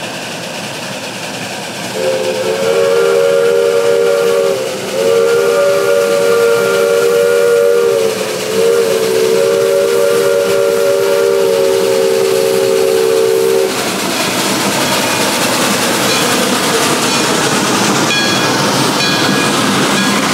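Narrow-gauge geared steam locomotive's chime whistle blowing three long blasts, several notes sounding at once, the last blast the longest. When it stops, a steady hiss of steam carries on.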